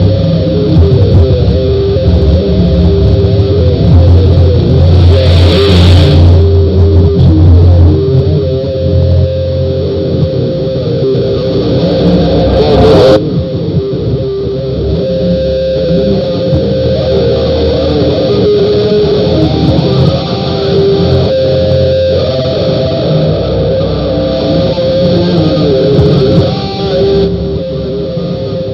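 Loud, heavily distorted music with guitar and a heavy low end, smeared with reverb, with brief whooshing noise sweeps about five seconds in and again near the middle.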